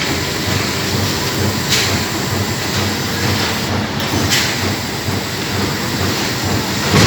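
Amada CNC turret punch press running automatically: a continuous, loud mechanical clatter of rapid punching strokes and sheet movement, with a couple of sharper knocks.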